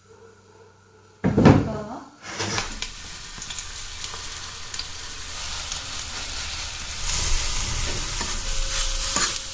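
Mango batter frying in hot oil in a black iron pan, sizzling steadily as a fork works through it; the sizzle starts a couple of seconds in and grows louder near the end. Just before it starts there is a short loud knock.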